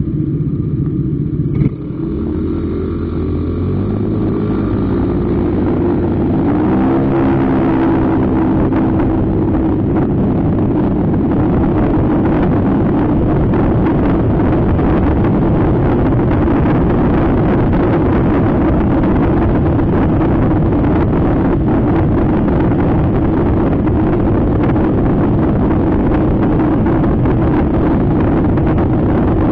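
Motor scooter engine pulling away from a stop, its pitch climbing in steps over the first several seconds, then settling into a steady rush of engine and wind noise at cruising speed.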